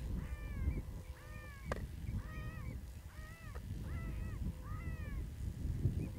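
ICOtec electronic predator caller playing a prey-distress squeal, a string of evenly repeated squealing calls that each rise and fall, one to two a second. A low wind rumble sits under it, with a single sharp click just under two seconds in.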